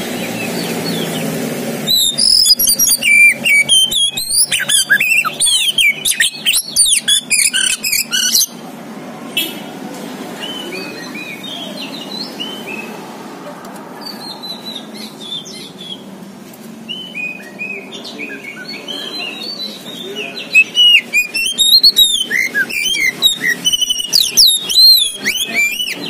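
Oriental magpie-robin (kacer poci) singing: loud runs of rapid, varied whistled phrases, softer and sparser for a stretch in the middle, then loud again near the end.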